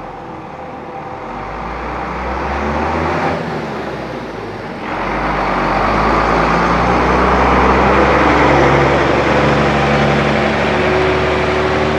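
Large diesel farm machine engine running steadily, growing louder over the first few seconds, easing off briefly around three to five seconds in, then louder again.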